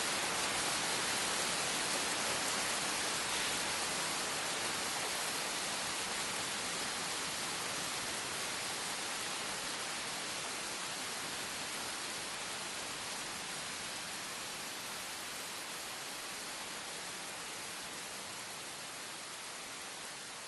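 A steady, even rushing hiss with no distinct events in it, slowly fading.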